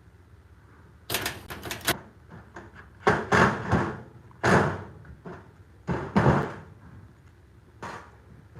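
Lock hardware being handled and fitted against a hollow steel garage door section: a quick run of metallic clicks and rattles, then three louder knocking, scraping bursts against the door panel.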